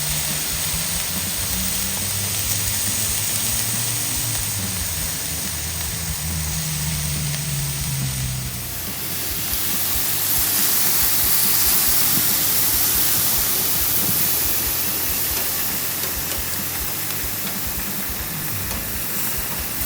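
Pieces of flat iron steak sizzling steadily as they brown on a Blackstone flat-top griddle. About eight seconds in the sound shifts, and the sizzle becomes a bit louder and brighter.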